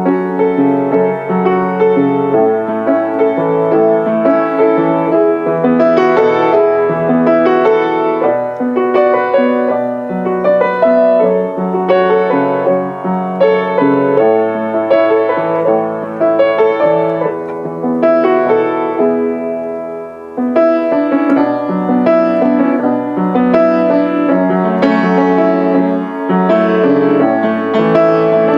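Background piano music, with a brief drop in loudness about two-thirds of the way through.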